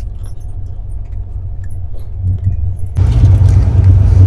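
Passenger train running, heard from inside the coach as a steady low rumble with faint rattles; about three seconds in it turns abruptly louder and noisier.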